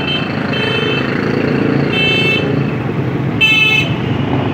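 Street traffic: a steady engine rumble with three short vehicle horn toots, the last and loudest about three and a half seconds in.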